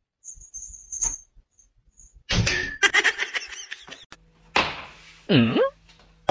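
Thuds and clatter of a cat leaping and crash-landing on a tiled floor, with a sharp hit about two-thirds of the way through. Soon after comes a pitched sound that slides down low and rises again.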